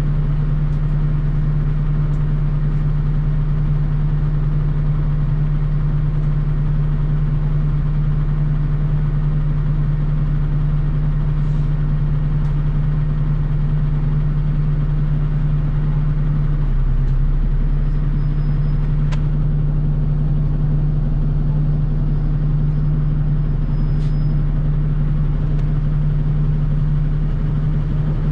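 Diesel engine of a NefAZ 5299 city bus idling steadily while the bus stands, heard from inside the passenger cabin. The low hum is even, with a small shift in pitch about halfway through.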